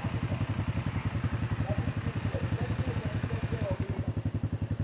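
Off-road vehicle engine idling steadily, an even low pulsing at about a dozen beats a second.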